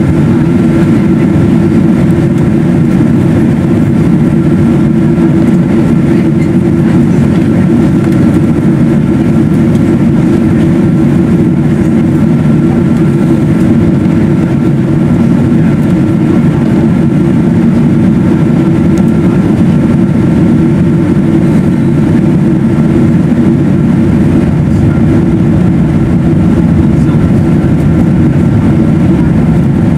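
Steady cabin noise inside a Boeing 777-200ER airliner in flight: the deep rush of airflow and its Rolls-Royce Trent 895 engines, with a faint steady whine above it.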